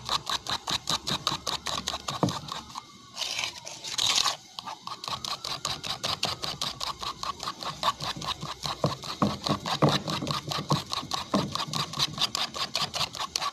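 Fork beating thick frying batter in a glazed clay bowl, clicking against the bowl about five times a second, with a short scraping pause about three seconds in.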